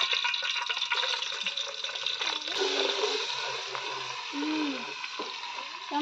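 Hot cooking oil sizzling and crackling in an aluminium pot over a wood fire, loudest at the start and easing off gradually.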